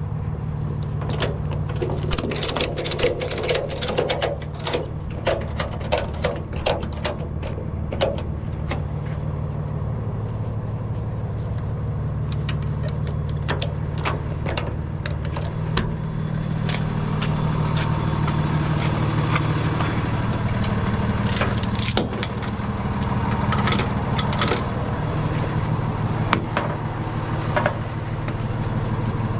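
Rollback tow truck's engine running steadily, with a quick run of metallic clicks and rattles from a ratchet strap being worked by hand on the steel deck over the first several seconds, and scattered clicks later.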